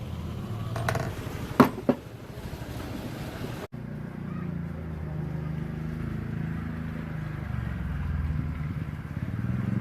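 Two sharp knocks of metal, one right after the other, about a second and a half in, then after an abrupt cut a steady low engine hum.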